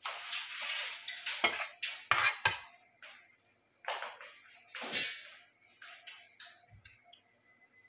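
Metal serving spoon scraping and clinking against steel platters while spreading and fluffing cooked rice. It comes in bursts, with a few sharp clinks in the first three seconds and another run of scraping around four to five seconds in.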